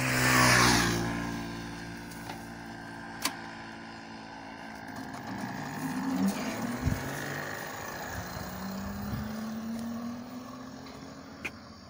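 Electric motorcycle with a 1500 W 48 V hub motor pulling away, a low hum rising slightly in pitch as it gathers speed and fading as it goes. A loud rush of wind on the microphone in the first second, and a few sharp clicks.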